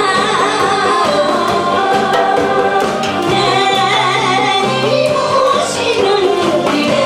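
An elderly woman singing a melody into a microphone over amplified backing music with a steady bass line.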